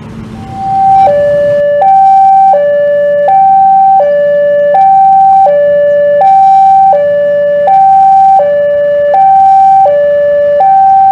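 Railway level-crossing warning alarm sounding: an electronic two-note chime alternating evenly between a higher and a lower tone, each note about three-quarters of a second long. It starts about half a second in and signals that a train is about to pass and the crossing is closing.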